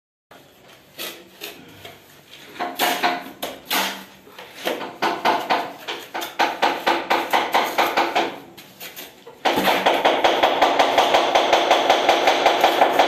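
Steel trowel scraping and spreading wet cement mortar across the back of a ceramic tile in repeated strokes. About three-quarters in, a louder, steady rhythmic sound with held tones, about four beats a second, suddenly takes over.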